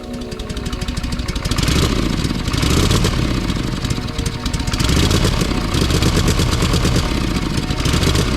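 Harley-Davidson Shovelhead V-twin engine running, its firing a dense rapid beat, swelling louder about two seconds in and again around five seconds in.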